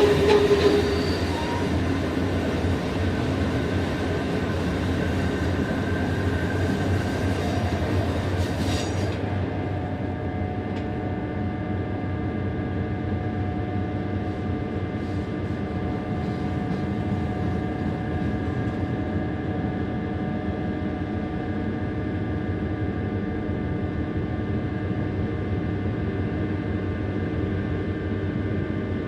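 Electric narrow-gauge Bernina line train running, heard from aboard: a steady rumble of wheels on rail, with a brief wheel squeal near the start. About nine seconds in, the high hiss drops away suddenly, leaving the rumble with a steady whine of several held tones.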